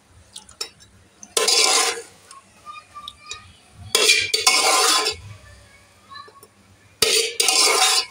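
Metal ladle scraping and scooping inside a metal pot as braised beef is spooned out into another pot: three long scrapes, a little over two seconds apart, with light clinks between them.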